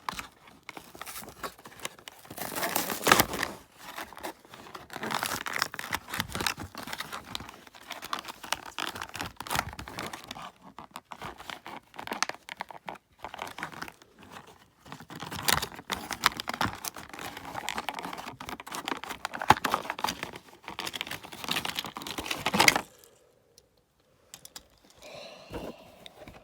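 Diecast toy car's cardboard-and-plastic blister packaging being torn and crinkled open by hand, in uneven bursts of ripping and crackling that stop about three seconds before the end.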